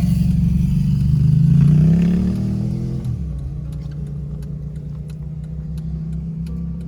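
Car engine accelerating, its pitch climbing for about two seconds before it eases off about three seconds in, then running steadily. Faint, evenly spaced clicks are heard over the steady part.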